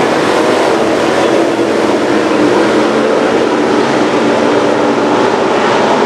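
Street stock race cars running at speed on the track: a loud, steady engine drone from the pack.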